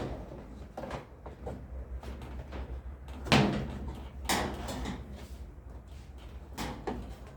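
Plastic retaining tabs on a Brastemp washing machine being pried and knocked loose with a screwdriver: a few sharp plastic clacks and knocks, the loudest about three and a half and four and a half seconds in.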